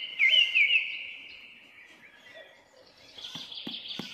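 A bird calling: a quick run of rising chirps, then a fading trailing call, and fainter calling again later. A few faint knocks come near the end.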